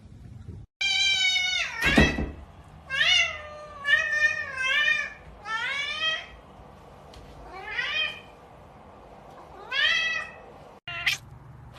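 Kitten meowing over and over: about seven high calls, several rising in pitch, with a sharp knock about two seconds in.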